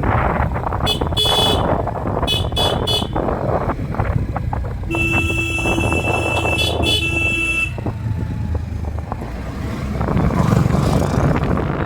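A vehicle horn sounds a few short beeps in the first three seconds, then a longer blast of nearly three seconds midway. Underneath, a motorcycle engine runs steadily with wind noise on the microphone.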